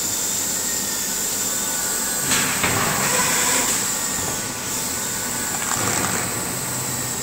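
Aluminium-foil and EPE foam laminating machine running with a steady mechanical hum and a thin high whine. Two short bursts of rustling come about two and a half seconds in and again near six seconds.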